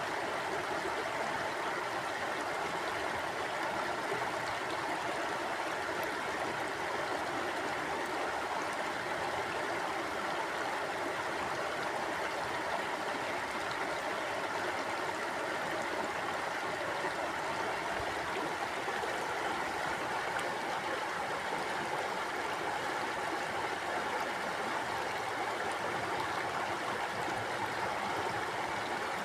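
Stream of water flowing steadily over rocks, an even rushing and babbling with no breaks.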